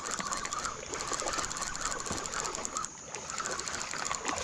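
Spinning reel being cranked to bring in a hooked fish, a fast, even ticking. A steady high insect drone runs underneath.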